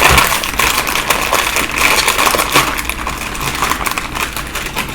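Close-up crunching of Doritos tortilla chips being chewed: a dense, irregular run of crisp cracks.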